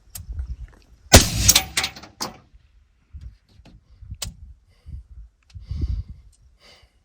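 A single shot from a suppressed 5.56 AR-15-pattern rifle fitted with a Silencer Co. Hybrid 46M suppressor, firing M855 about a second in, with a short trailing tail. Smaller clicks and knocks follow.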